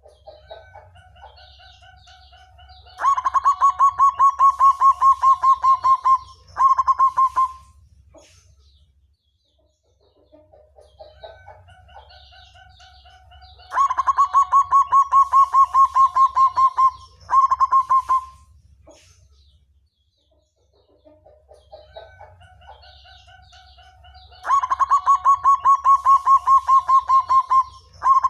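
Black zebra dove (perkutut) singing: three song phrases about ten seconds apart, each opening with soft, lower cooing notes, then a loud, rapid run of pulsed coos on one pitch for about three seconds, and ending in a short separate burst. The last phrase is cut off near the end.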